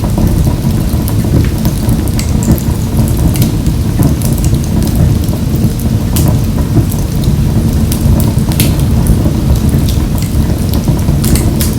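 Wood fire burning in a wood-burning stove: a steady low roar of flames with frequent crackles and sharp pops from the burning logs.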